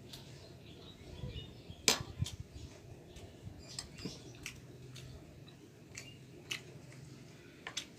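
Scattered sharp clicks and taps of a spoon against a bowl while eating, the loudest about two seconds in, over a low steady hum.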